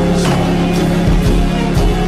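Background music with a steady drum beat and sustained notes.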